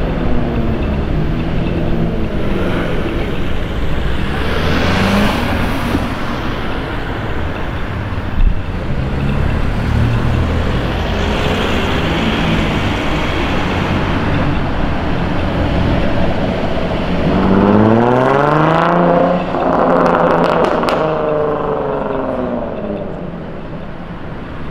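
Modified Jaguar F-Type S with a loud aftermarket exhaust, rolling through traffic at low revs, then accelerating hard. Its note rises twice with a gear change between, then fades as the car pulls away. A single short, sharp bang about eight seconds in.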